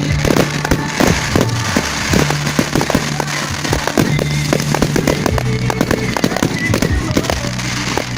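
Fireworks display: a fast, dense run of bangs and crackles, with music playing underneath.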